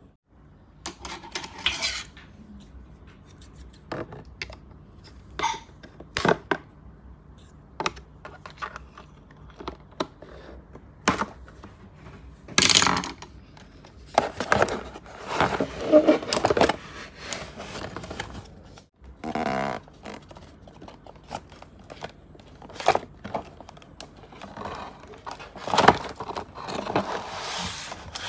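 Hands taking a toy dinosaur out of its cardboard and plastic packaging: scattered sharp clicks and scrapes, with longer stretches of rustling.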